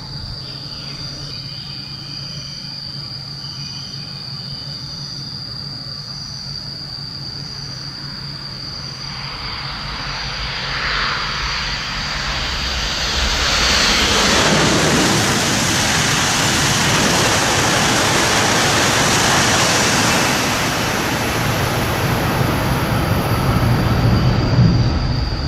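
Shinkansen bullet train passing through the station at high speed: a rush of air and wheel noise builds over several seconds, stays loud for about six seconds, then drops away. A low rumble rises near the end.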